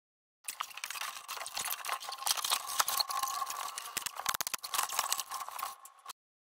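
A thin ceiling panel being pushed up and shifted against wooden ceiling framing, rattling, scraping and knocking irregularly, with a quick cluster of sharper knocks about four seconds in. The sound starts about half a second in and cuts off abruptly near the end.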